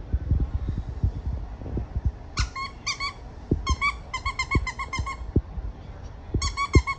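Dog squeaky toy squeezed in quick series of high, even-pitched squeaks: a couple about two and a half seconds in, a fast run of about a dozen around the middle, and another quick run near the end. Soft low thumps and knocks of play sound between them.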